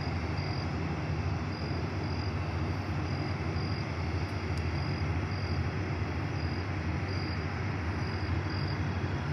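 Tugboat's diesel engines running as a steady low drone while the boat passes. A faint high chirp repeats about twice a second, like a cricket.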